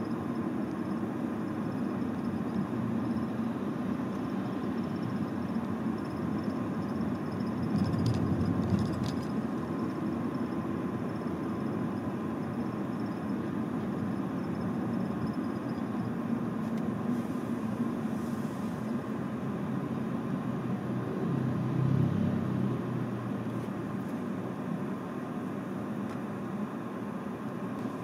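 Road traffic: a steady rumble of car engines and tyres, swelling louder about eight seconds in and again around twenty-two seconds.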